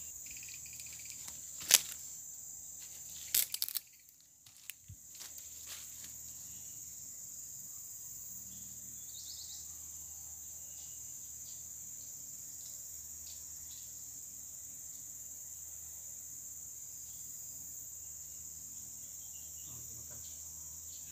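Steady high-pitched chorus of forest insects. A few sharp clicks break in during the first four seconds, the loudest about two seconds in.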